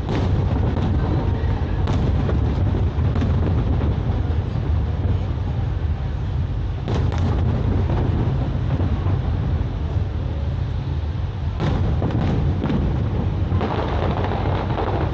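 Aerial fireworks display: a continuous low rumble of bursts, with sharp bangs about two, seven and twelve seconds in. Near the end comes a dense spell of crackling.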